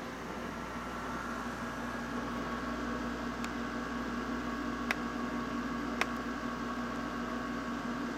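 Window air conditioner running with a steady hum and hiss. A few short clicks stand out, the sharpest about five and six seconds in.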